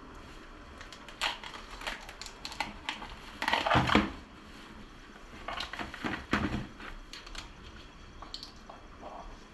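A plastic rubbish bag rustling and crackling as hands work inside it, with crunching of crab shell as mud crabs are broken apart by hand. The sounds come in irregular clusters, loudest a little before halfway and again about two thirds in.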